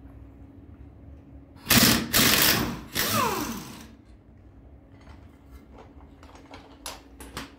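Impact wrench run in three short rattling bursts, the last winding down with a falling whine, while brake caliper bolts are undone. A few light metallic clinks follow near the end.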